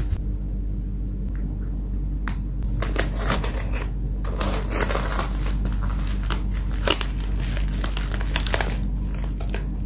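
Plastic bubble mailer handled and pulled open at its sealed flap by hand: irregular crinkling and crackling of the plastic that starts about two seconds in and grows busier, over a steady low hum.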